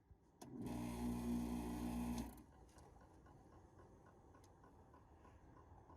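Window air conditioner running after a long fall, a steady hum that sounds pretty bad; it cuts off suddenly about two seconds in.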